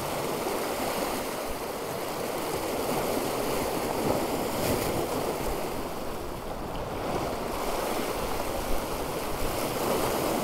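Sea surf washing and breaking over shoreline rocks: a steady rushing wash that swells and eases every few seconds.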